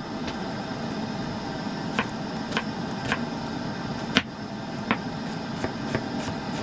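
Bacon frying in a pan on a stove: a steady hiss with irregular sharp pops of spitting fat, the loudest about four seconds in.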